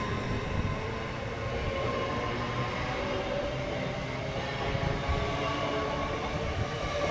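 LNER Class 801 Azuma electric train running past at close range as it accelerates: a steady rumble of wheels and running gear with a faint, even hum of motor tones over it.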